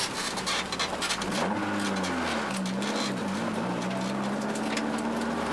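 Rally car engine heard from inside the cockpit, its pitch dropping and climbing again twice as the driver changes gear, then running at a steady pitch.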